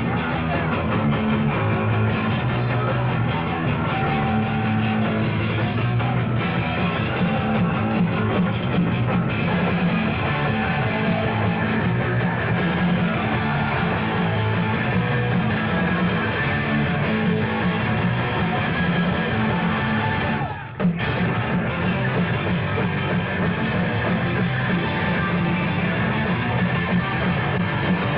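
Hardcore punk band playing live: distorted electric guitar and drums in a dense, continuous wall of sound, on a dull, lo-fi old tape recording. There is a momentary drop-out about twenty seconds in.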